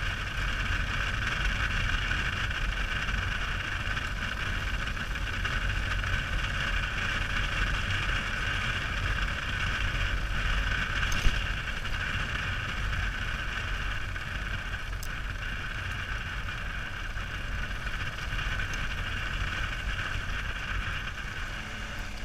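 Motorcycle riding along a gravel road: steady engine and road noise with wind rumble on the microphone. A single sharp click about eleven seconds in.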